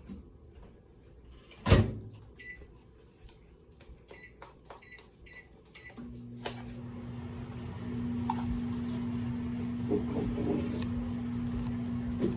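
A loud knock, then several short keypad beeps, then a microwave oven starts running about six seconds in with a steady hum that gets louder about two seconds later.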